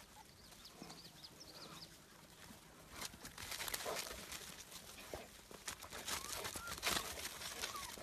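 Faint short squeaks and whines from a litter of young puppies, with scattered rustling and crackling that grows busier about three seconds in.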